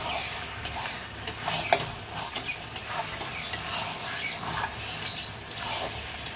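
A spatula stirring and scraping masala-coated mutton and potatoes in a metal kadai, with irregular clinks against the pan over a steady frying sizzle. This is the bhuna stage, where the spices are fried with the meat before water goes in. The sharpest clink comes a little under two seconds in.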